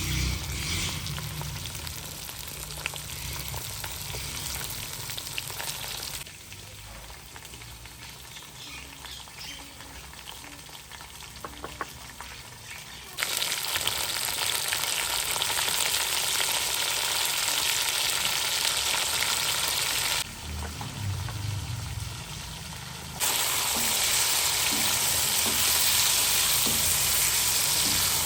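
Chicken frying and sizzling in hot oil, with stirring and a few sharp utensil clicks. The sizzle drops to a quieter level twice and comes back abruptly each time.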